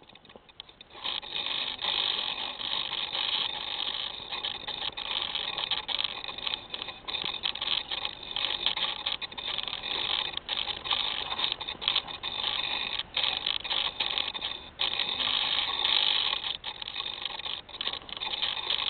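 Loud rustling and rubbing on an RC plane's onboard camera microphone as the plane is picked up out of the snow, starting about a second in, then carried along with uneven scuffing noise.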